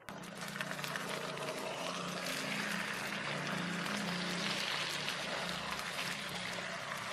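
Beaten egg and tofu cubes sizzling and crackling in hot oil in a nonstick pan over medium heat, with a silicone spatula turning and breaking up the setting egg partway through.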